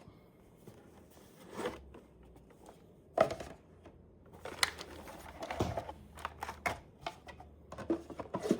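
Cardboard box and packaging being handled while unpacking a trading-card Elite Trainer Box: scattered light taps, rustles and scrapes, with sharper knocks about three seconds in and near five seconds.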